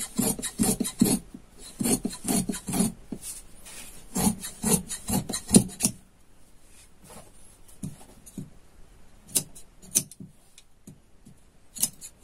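Large tailor's shears cutting through cloth in quick repeated snips. The snipping stops about six seconds in, leaving only a few faint clicks.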